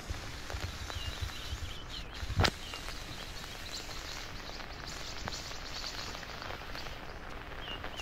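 Forest ambience: faint, scattered bird chirps over a steady background noise with a low rumble, and one sharp knock about two and a half seconds in.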